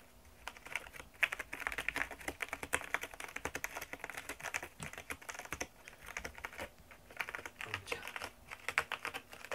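Cat clawing a round corrugated-cardboard scratcher: rapid, irregular scratching strokes on the cardboard, starting about half a second in.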